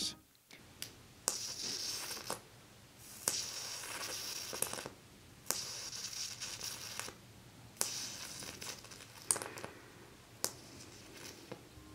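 A high-voltage arc from a flyback transformer run by a ZVS driver, hissing and crackling in about five stretches of a second or so. Each stretch starts with a sharp snap as the arc strikes.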